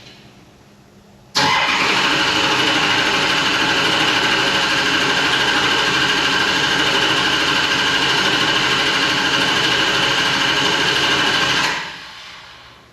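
Engine running steadily at a loud, even pitch. It cuts in suddenly about a second in, then dies away about ten seconds later.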